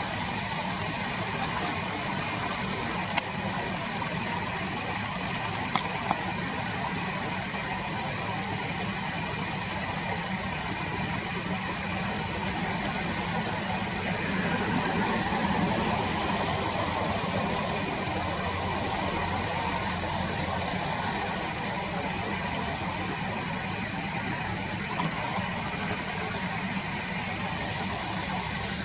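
Car engine idling steadily, heard from inside the car, with a steady high buzz over it and a few sharp clicks.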